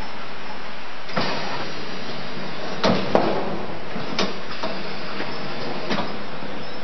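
Fruit peeling machine running with a steady noise, broken by a series of sharp mechanical clacks as its clamps and arms move. There are about seven clacks, the loudest pair about three seconds in.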